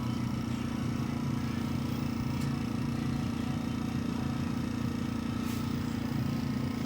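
Small hobby airbrush compressor running with a steady, pulsing hum, under a constant hiss of air. Two faint clicks are heard, one about two and a half seconds in and one about five and a half seconds in.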